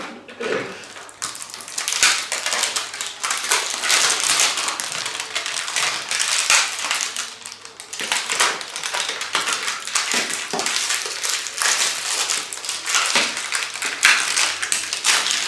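Plastic packaging crinkling and rustling in the hands, with light clicks and taps of plastic shoe-tree parts being handled, in irregular bursts.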